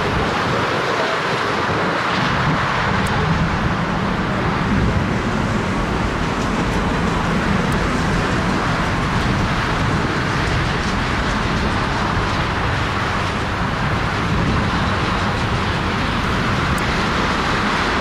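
The four jet engines of a Boeing 747 freighter running steadily as it moves along the runway: a constant deep, rushing roar with no breaks.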